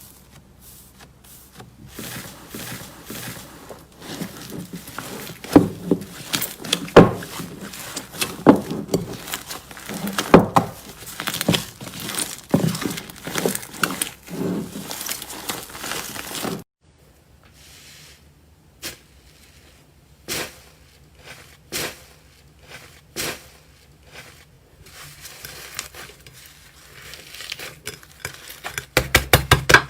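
Slime being squeezed and pressed by hand, making irregular sticky crackles, pops and clicks. It is busiest in the first half, then cuts off abruptly and goes on with sparser pops.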